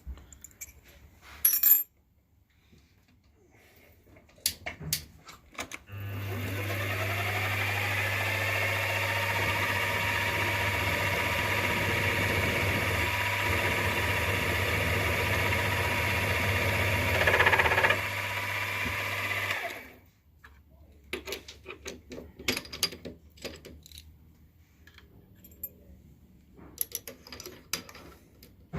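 Light clicks and taps of tools being handled, then a milling machine's spindle motor starts about six seconds in with a rising whine. It runs steadily with a hum for about fourteen seconds, drilling the hole with a 17/64 drill, gets briefly louder near the end, then winds down, followed by more light clicks and taps.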